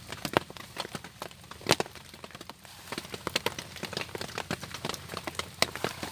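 Small campfire of split kindling crackling, with sharp, irregular pops and snaps several times a second, as sticks are laid onto it by hand.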